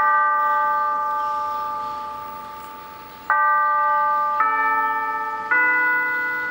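Church bells chiming a sequence of different notes, each struck and left ringing. The first note rings out and fades for about three seconds, then three more follow about a second apart.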